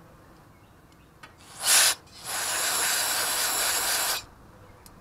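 Aerosol carburetor cleaner sprayed onto a carburetor's float bowl parts: a short burst of spray about a second and a half in, then a steady spray lasting about two seconds.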